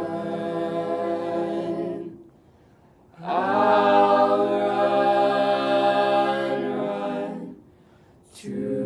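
Mixed teenage a cappella group singing long sustained chords with no clear words. Two held chords are separated by short breaks, the second one louder, and a brief hiss comes just before a new chord enters near the end.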